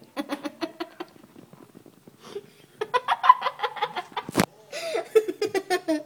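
Giggling laughter in three spells of quick bursts, with one sharp click about four and a half seconds in.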